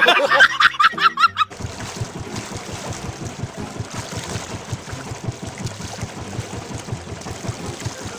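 A man's loud, high-pitched laugh for about a second and a half, then a steady wash of water sloshing around a small outrigger fishing boat.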